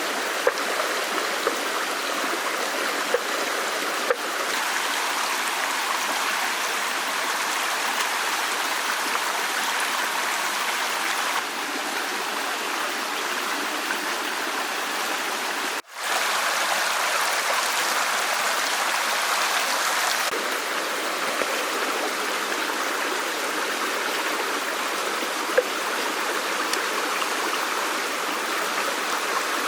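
A stream of water flowing with a steady rush, with a few faint ticks over it and a brief break about 16 seconds in.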